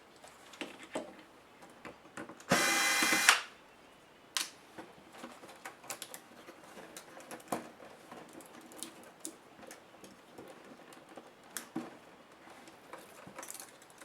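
Electric screwdriver running in one short burst of under a second, backing out a laptop case screw, among small clicks and knocks of screws and plastic parts being handled.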